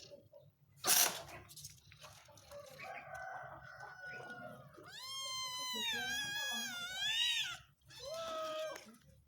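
A sharp knock about a second in, then a cat meowing: one long, wavering meow followed by a shorter one.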